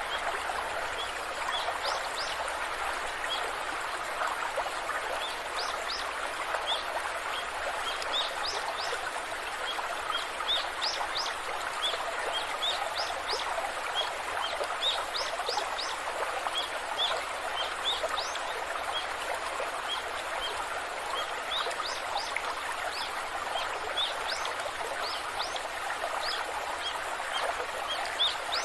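Waterfall water rushing steadily, with small birds chirping: short, high chirps repeated many times over the water throughout.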